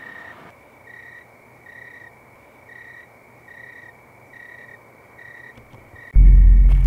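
Night insect chirping, typical of crickets: one short chirp at a steady pitch a little under once a second. About six seconds in, a loud low rumble starts suddenly.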